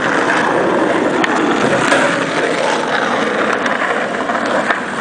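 Skateboard wheels rolling over pavement in a steady rumble, with a few light clacks of the board.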